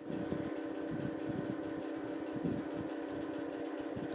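Steady machine hum, with irregular low rumbles from the phone being moved and handled.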